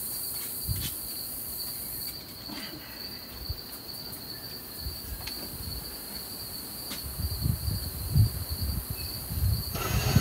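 Insects chirring: a steady high-pitched trill carries on under a few faint clicks. In the last few seconds a low rumble builds, and a cordless drill starts up right at the end.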